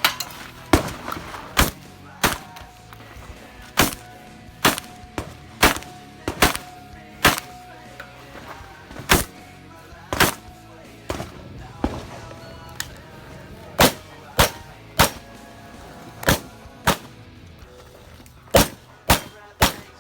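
Shotgun firing about twenty sharp shots in short strings, roughly one every half second to a second, with brief pauses between strings.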